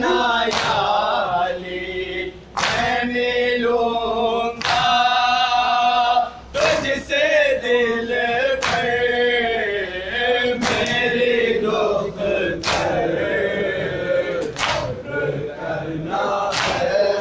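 A group of men chanting a noha (Shia lament) together, with loud unison strikes about every two seconds: hands beating on chests in matam.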